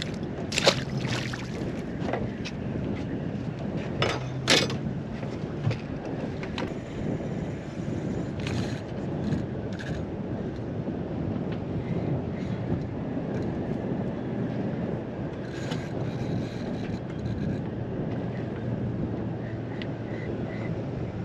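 Steady wind buffeting the microphone aboard a small boat, with water around the hull. A few sharp knocks on the boat stand out, the loudest just under a second in and at about four and a half seconds.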